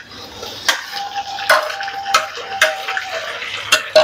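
Onions and garlic sizzling in hot oil in a nonstick wok as chopped tomatoes are tipped in, with about six sharp clicks and knocks from the spatula and plate against the pan.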